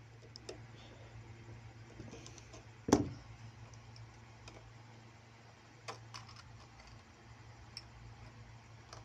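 Metal clicks and taps from hands working the presser bar and presser foot of a Singer sewing machine, with one sharp knock about three seconds in and a few smaller clicks near six seconds, over a low steady hum.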